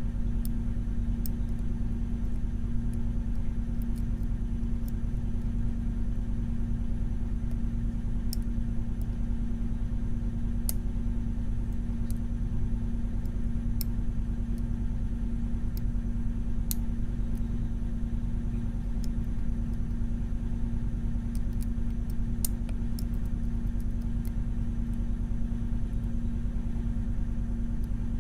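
A steady low mechanical hum runs throughout, with faint, irregular small clicks of a lock pick and tension tool working the pins of a Mul-T-Lock Junior pin-in-pin lock.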